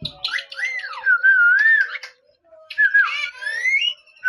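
Parrot whistling and chattering: wavering, gliding whistled notes mixed with short harsh calls, with a brief pause midway and a rising whistle near the end.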